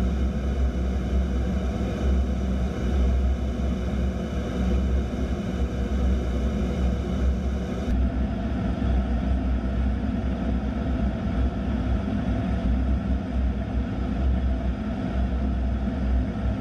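Steady cockpit noise of an A-10 Thunderbolt II in flight: a loud, even rumble from its two TF34 turbofan engines and the airflow, with a steady whine over it. The highest hiss thins about halfway through.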